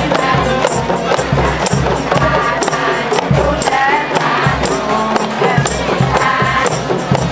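A group of rebana frame drums beaten by hand in a steady rhythm, with voices singing over them.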